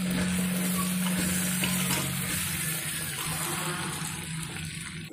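Potatoes and chickpeas sizzling in hot oil in a pressure cooker while a steel spoon stirs ground spices through them, with a steady low hum underneath. The sizzle grows fainter toward the end.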